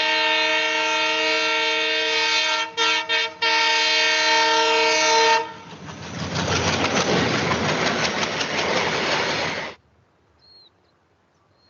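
A loud horn sounding a held chord of several steady notes, broken twice briefly near the middle, then a dense rushing rumble for about four seconds that cuts off suddenly.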